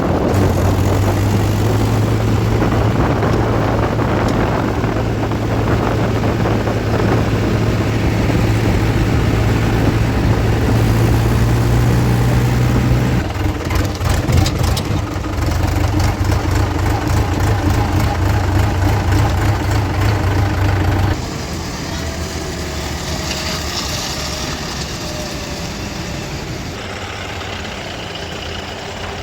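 Heavy diesel machinery working: the engines of a backhoe loader and tractors keep up a steady low drone. About halfway through there is a break with a run of knocks and clatter, and a little after two-thirds of the way the sound drops to a quieter engine running.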